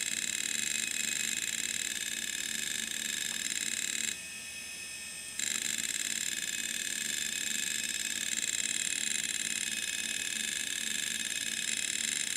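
Very old Samsung WN321620A 2 GB hard drive running hard while files are copied off it: a loud, steady high whine over a low pulsing hum. The whine drops away for about a second around four seconds in, then comes back.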